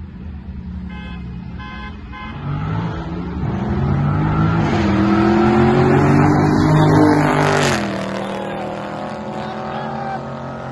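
A car accelerating hard past the listener: the engine revs climb and grow louder, then the pitch and level drop sharply about eight seconds in as it goes by, settling to a steadier, lower engine sound.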